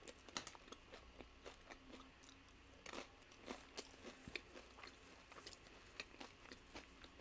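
Close-miked chewing of nacho chips topped with bulgogi and salsa: a run of irregular, crisp crunches, quiet overall.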